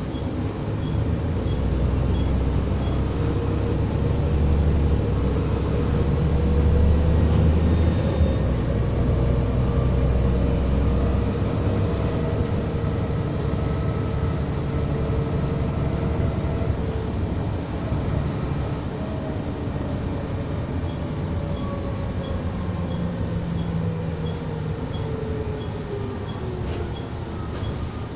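Volvo ALX400 double-decker bus under way: the engine's low rumble grows heavy for the first ten seconds or so, as under acceleration, then eases. A whining tone wavers up and down over it and slides down in pitch near the end.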